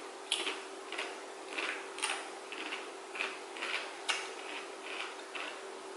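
Close-up eating sounds from a chocolate-coated Magnum ice cream bar: short, wet chewing and crunching noises repeating about two to three times a second, with a few sharper clicks.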